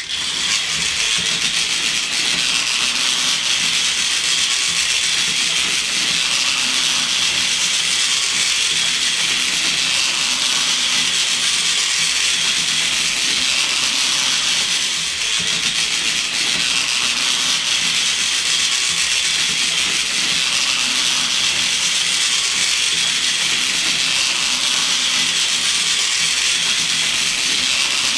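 TOMY Plarail battery-powered toy train running laps of a plastic track: the steady, high-pitched whir of its small motor and gearbox, with a fine rattle of the wheels on the track.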